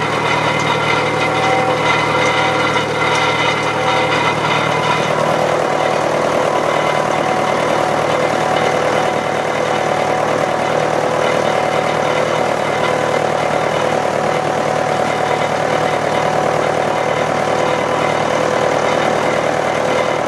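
Old tractor engine running steadily under way, heard from the driver's seat, its tone shifting slightly about five seconds in.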